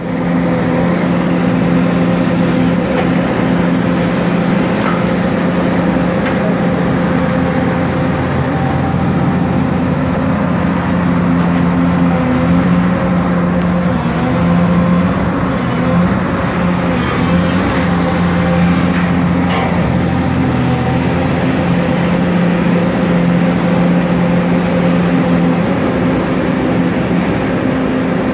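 Diesel engine of a long-reach demolition excavator running steadily close by, a constant loud engine drone while the machine works its grab.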